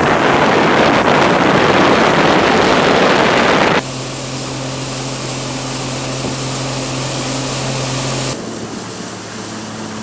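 Wind rushing on the microphone over water noise for the first few seconds, then a steady motorboat engine drone as a workboat runs across calm water. The sound changes abruptly twice, about four and eight seconds in.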